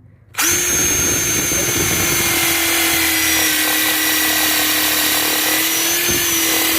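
Bauer 20-volt cordless impact driver starting about half a second in and then running steadily at a constant pitch.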